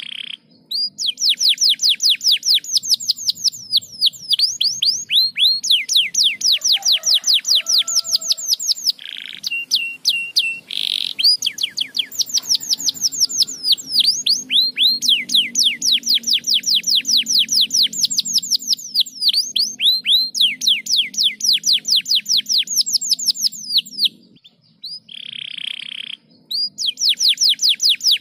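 Canary singing: long, fast trills of rapidly repeated falling notes, about eight a second, broken by short pauses, a held whistled note and brief buzzy notes.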